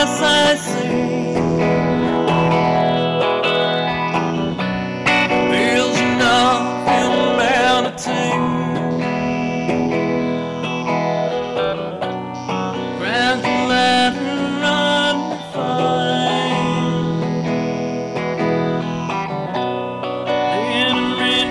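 Guitar-led music: a plucked guitar playing continuously, with a wavering melodic line above it.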